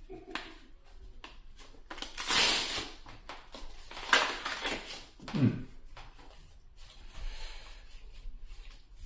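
Crinkling and rustling of a foil trading-card booster pack and cards being handled, in uneven bursts, with a sharp click about four seconds in and a short low falling sound a little later.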